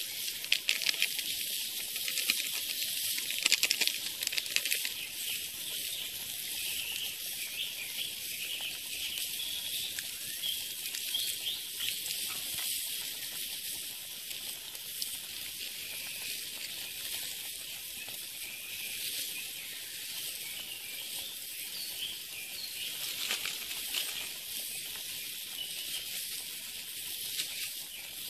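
Open wood fire burning under a pot of boiling water: a steady hiss with small crackles, busiest in the first few seconds.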